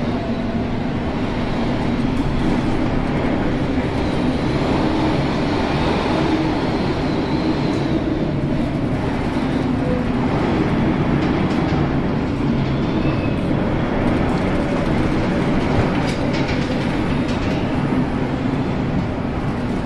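Storm wind and heavy seas rushing steadily around a tanker in a gale, with a low rumble underneath and a faint whistle now and then.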